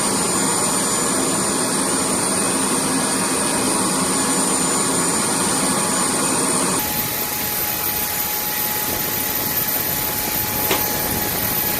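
Jet aircraft turbofan engines running with a steady high whine over a broad rush. About two-thirds of the way through, the sound switches abruptly to a slightly quieter engine noise with a thinner, higher whistle.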